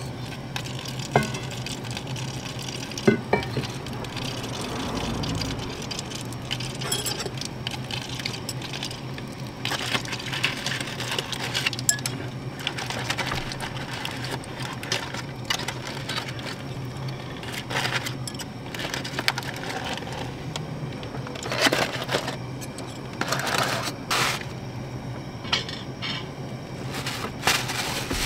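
Stainless steel plates and metal tongs clinking and scraping, with sharp clinks about one and three seconds in, and aluminium foil crinkling as it is handled off the pan. A steady low hum runs underneath.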